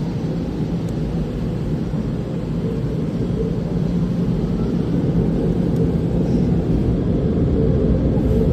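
Automatic car wash machinery running, heard from inside the car: a steady low roar with a hum, growing slightly louder.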